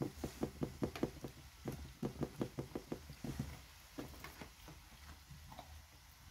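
Hands patting and pressing a ball of dough flat on a plastic pastry board: quick soft pats, about five a second, for the first three seconds or so, then a few scattered light taps.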